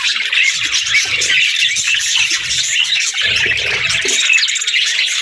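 Many birds chirping at once in a dense, continuous chatter, with scattered low thumps underneath.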